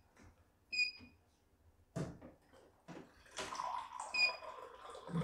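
Key-press beeps from a CNY E900 embroidery machine's control panel: two short high beeps, about a second in and about four seconds in. A click comes about two seconds in, and a soft hissing noise with a faint steady hum fills the second half.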